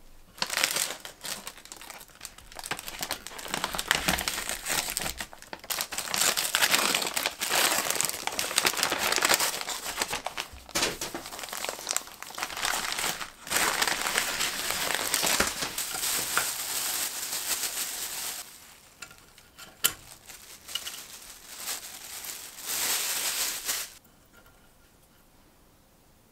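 A paper bag being crumpled and rustled by hand, in long busy stretches that thin out later, with one sharp tap. It stops a couple of seconds before the end.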